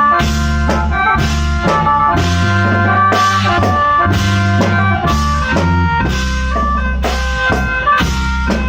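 Thai khaen band music: khaen mouth-organ chords over a drum kit keeping a steady beat, with deep bass notes underneath.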